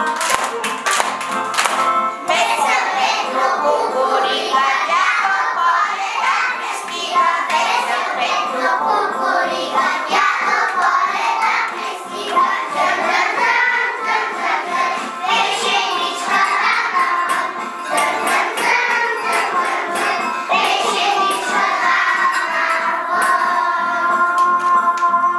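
A group of young children singing a song together over a recorded backing track, with hand claps in time that are clearest in the first two seconds and near the end.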